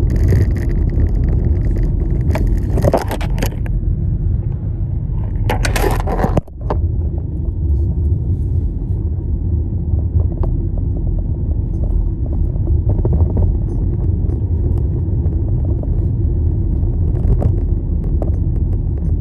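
Car driving, heard from inside the cabin: a steady low road and engine rumble, with brief rattling noises about 3 and 6 seconds in and a few light clicks.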